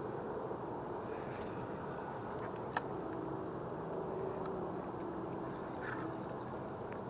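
Steady low outdoor rumble, like distant traffic, with a few light clicks from handling a spinning reel, the sharpest about three seconds in.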